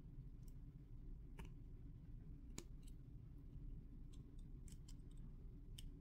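A handful of faint, sharp metallic clicks from needle-nose pliers working a steel trundle wire into a brass lantern pinion of a clock wheel, the sharpest about halfway through, over faint steady room noise.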